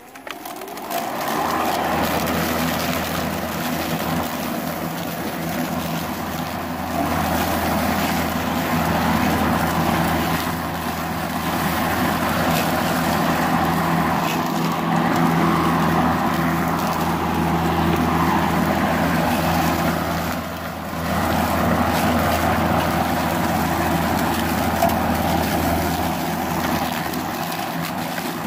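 Makita 18V X2 (36V) cordless electric lawn mower spinning up about a second in, then running steadily with a low motor hum and the rush of its blade cutting tall, wet grass and weeds. The sound dips briefly about twenty seconds in, then picks up again.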